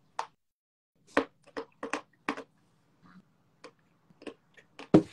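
Crunching as edible clay is bitten and chewed close to the microphone: a quick run of short, sharp crunches about a second in, then more scattered ones, with the loudest near the end.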